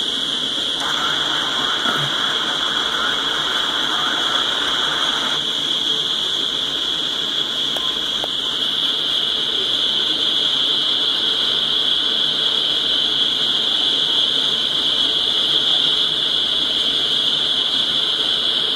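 Freight train of tank cars rolling past at a steady speed: an even rolling noise of wheels on rail, with a constant high-pitched hiss over it.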